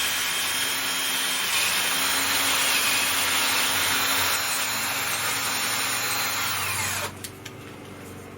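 Power drill turning a reamer through the holes in metal clamp plates, running steadily and stopping about seven seconds in.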